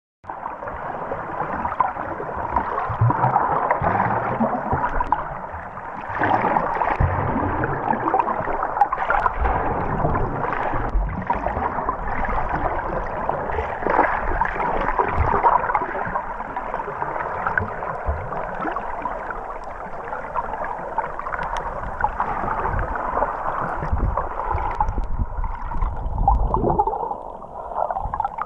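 Underwater water noise heard through a GoPro's waterproof housing: muffled swirling and bubbling water with scattered low thuds as the camera is moved through the water. It drops away briefly near the end.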